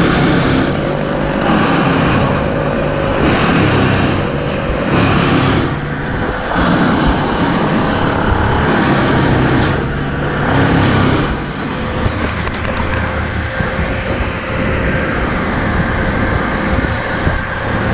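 A large engine running under varying load, surging and easing every second or two, then settling into a steadier run after about twelve seconds.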